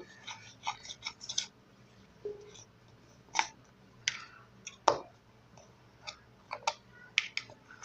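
A small spoon stirring toothpaste and flour into a paste in a bowl: irregular clicks and scrapes of the spoon against the bowl, with a few sharper taps.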